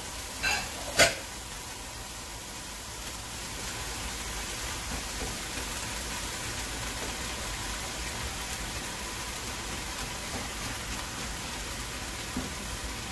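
Ground turkey sizzling in a pan of sautéed onions, carrots and celery as it is broken up and stirred with a spatula. Two sharp knocks come about half a second and a second in, then the sizzle runs on steadily.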